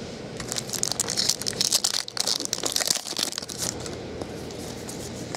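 Trading card pack wrapper being torn open and crinkled, a dense crackling that runs for about three seconds and then dies down.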